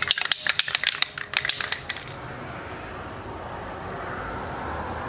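Aerosol spray-paint can being shaken: its mixing ball rattles in quick sharp clicks for about two seconds, then gives way to a steadier noise.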